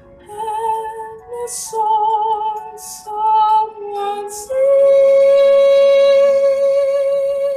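A young woman singing solo: a few short sung phrases with sharp s sounds, then a long held note with vibrato from about four and a half seconds in, the loudest part.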